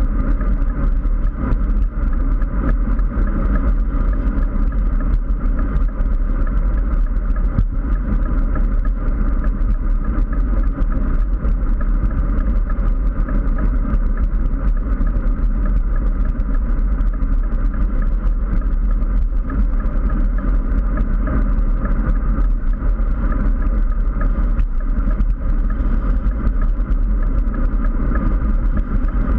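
Steady rush of wind and tyre noise on a bike-mounted GoPro's microphone while riding at speed on asphalt, a loud unbroken low rumble.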